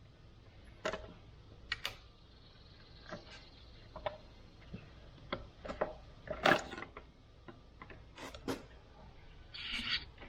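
Irregular light clicks and knocks of hand tools and small parts being handled while a skid steer cab's blower motor assembly is taken apart, with a louder knock about six and a half seconds in and a short scrape near the end.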